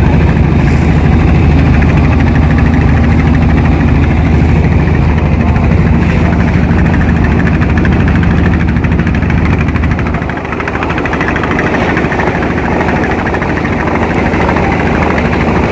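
Small tour boat's engine running steadily under way, with a rush of water and wind over it. The engine note eases and drops a little about ten seconds in.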